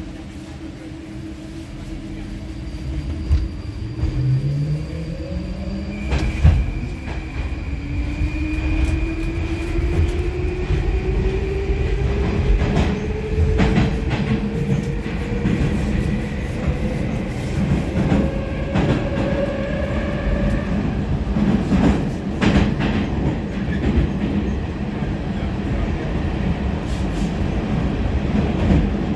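81-726.1 "Baltiets" metro train pulling away and accelerating. The traction motors' whine starts about three seconds in and rises steadily in pitch, levelling off after about twenty seconds, over growing wheel-and-rail rumble with a few sharp clacks.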